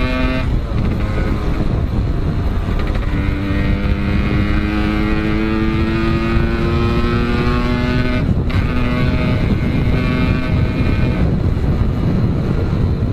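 135cc motorcycle engine running through a 'packing power' aftermarket exhaust, accelerating through the gears: its pitch rises steadily, drops at a shift about half a second in and again about eight seconds in, then evens out near the end. A loud low rumble of wind and road noise runs under it.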